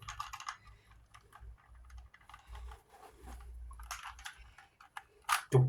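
Plastic Rubik's Cube being twisted by hand: bursts of quick clicks as the layers turn, with a loud click near the end.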